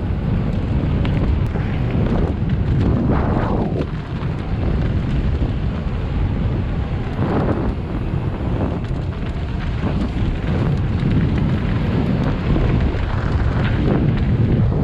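Wind buffeting the microphone of a camera carried on a downhill mountain-bike run, a steady heavy rumble with several louder rushing swells.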